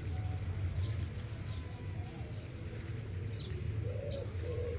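Small birds chirping, short falling chirps repeated every second or so, with a pigeon starting to coo about four seconds in, over a steady low rumble.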